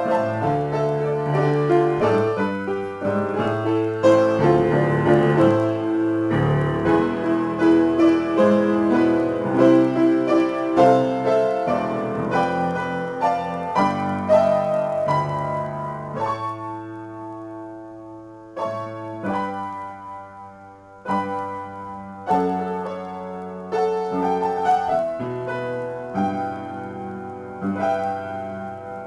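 Upright piano played solo, an improvisation in A minor: flowing, closely packed notes at first, growing quieter and sparser a little past halfway, then separate struck chords.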